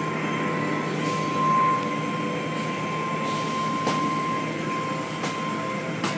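Automatic car wash working over a car, heard from inside the car: hanging cloth strips swishing and slapping across the body over steady machinery noise with a high whine. There are a few sharper knocks.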